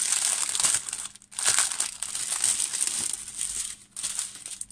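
Thin plastic packaging of a diamond-painting kit crinkling as hands work it open, breaking off briefly twice.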